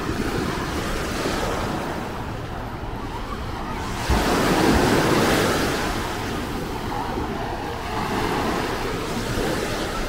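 Small waves washing onto a sand beach, a steady rush of surf with wind buffeting the microphone. The wash grows suddenly louder about four seconds in and eases off a couple of seconds later.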